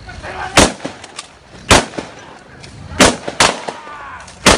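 Police gunfire: five single shots at uneven spacing, roughly a second apart, two of them close together near the middle.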